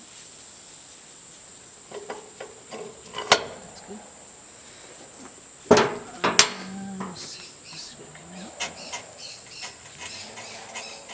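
Several sharp knocks and clanks, the loudest two a little past the middle and well under a second apart, over a steady high-pitched whine.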